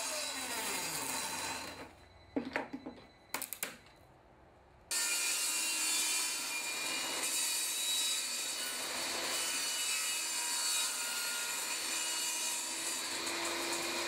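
Table saw blade cutting plexiglass as the sheet is turned to cut a circle, a steady rasping scrape. The saw's pitch falls and the noise dies away after about two seconds, a few sharp clicks follow, and about five seconds in the cutting noise starts again abruptly and runs on steadily.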